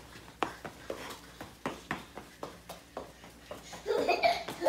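Scattered light knocks and taps, then laughter starts near the end.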